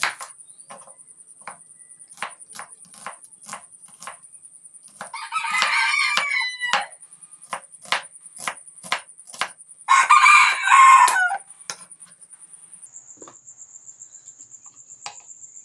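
Knife slicing an onion on a chopping board, sharp regular taps about three a second that stop about twelve seconds in. A rooster crows twice, about five and ten seconds in, the loudest sounds.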